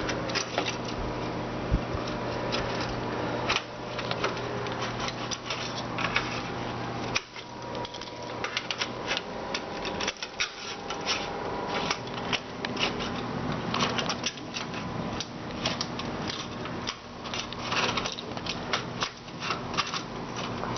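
Repeated small clicks and rattles of the new sliding-door roller and its clip being handled and worked into place, over a low steady hum.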